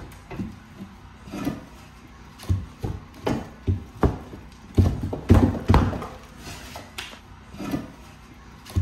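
Long-handled sledgehammer smashing flood-damaged drywall off wooden wall studs: repeated irregular thuds, about one or two a second, each followed by crumbling and cracking as pieces break away.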